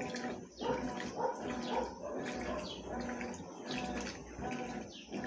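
Consul CWS 12 top-loading washing machine agitating: the motor hums and the water sloshes in strokes of about a second and a half, each broken by a brief pause.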